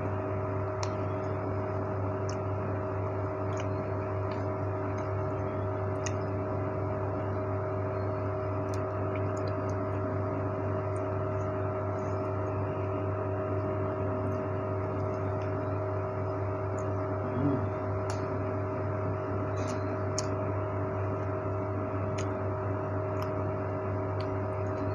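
Steady electric motor hum of a small desk fan: a low drone with several steady tones above it, unchanging throughout, with faint high chirps and small ticks over it.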